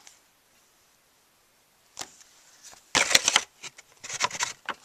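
Handling noise: quiet at first, then a single click and two short bursts of rapid clicking and rustling as things are moved about by hand.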